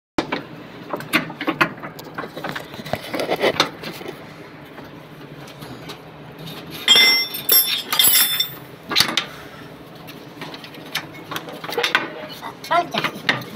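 Metal clinks and knocks of hand tools and parts as a steering tie rod end is worked free of the front steering knuckle. About halfway through comes a cluster of ringing metallic clinks.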